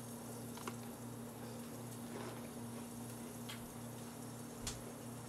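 Room tone: a steady low electrical hum, with a few faint clicks about a second in, past the middle and near the end.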